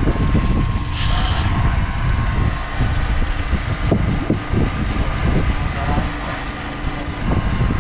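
Steady low rumble of a fishing boat's engine running, with wind buffeting the microphone and faint voices.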